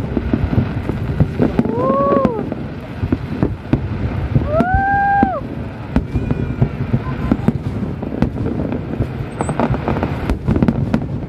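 Fireworks display: a dense run of aerial shells bursting and crackling in quick, irregular succession. Two brief whistle-like tones rise and fall over the bangs, about two and five seconds in.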